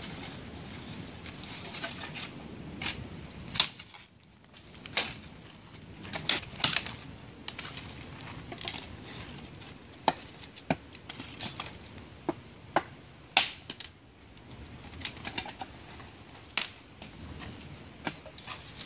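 Dry sticks and branches being snapped and broken by hand, with twigs dragging and rustling over pebbly ground: a long run of irregular sharp cracks between the rustling.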